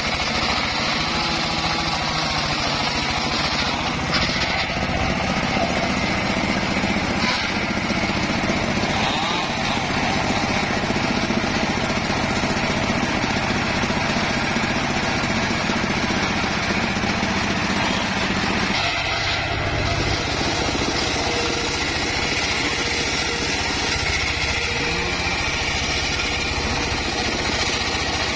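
Homemade engine-driven circular sawmill running steadily, its large blade ripping boards from a mahogany log. The tone of the machine changes about two-thirds of the way through.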